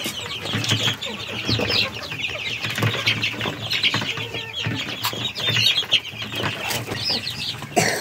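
A flock of chicks and ducklings peeping together: a dense, unbroken chorus of short high chirps, many falling in pitch.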